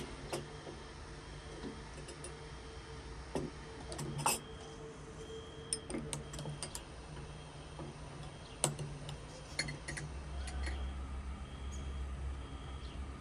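Scattered light clicks and clinks, with sharper knocks about four and eight and a half seconds in, over a steady low hum that grows louder near the end.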